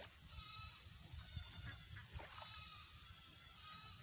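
Faint, wavering, drawn-out animal calls: a short one at the start and a longer one from about a second in, over a low rumble.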